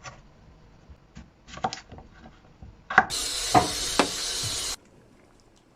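Knife knocking on a wooden chopping board in sparse, uneven strokes while potatoes are cut. About halfway through, a loud steady hiss starts and runs for about a second and a half, then cuts off suddenly; it is the loudest sound here.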